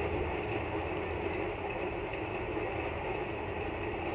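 Steady hiss of a moong dal pancake frying in ghee in a non-stick pan on low flame, as it is turned over with a metal spatula.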